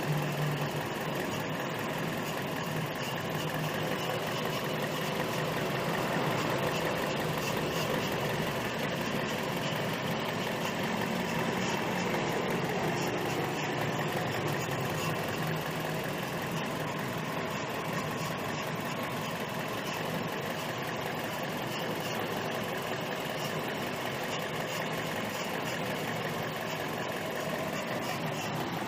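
Toyota Vios four-cylinder engine idling steadily with a hiss ("siisss") coming from around the air filter and MAF sensor. The owner traced the hiss to the evaporative emission control valve, the fuel-vapour purge valve that feeds petrol vapour into the intake.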